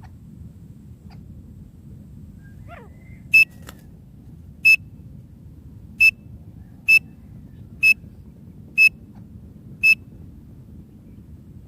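A teetar (francolin) gives seven sharp, high single notes, roughly a second apart, after a faint falling whistle, over a low steady rumble.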